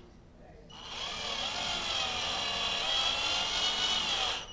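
Ingco cordless drill driving a black screw into a block of wood: the motor starts about a second in, runs with a high whine that wavers in pitch under load, and stops suddenly near the end with the screw driven in.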